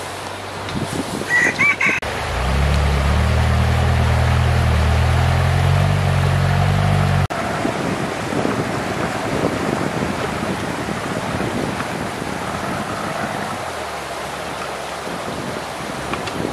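A rooster crows briefly, then a loud low droning hum runs for about five seconds and cuts off suddenly. The steady rush of a flowing river follows.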